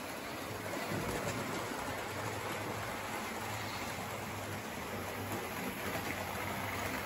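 Hornby OO gauge model trains running round the layout: a steady running noise of wheels on track and small electric motors, with a faint low hum.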